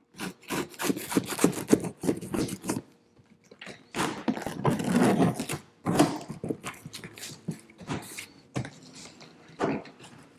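Pocket knife cutting through the packing tape and cardboard at the top of a shipping box in quick scraping strokes. Cardboard rustles and scrapes as the flaps are worked open.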